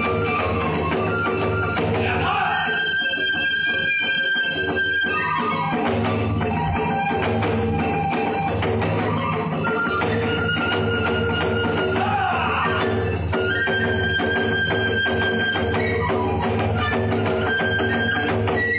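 Iwami kagura accompaniment: drums beaten with hand cymbals clashing in a dense, unbroken rhythm, and a flute holding long high notes that glide from one pitch to the next.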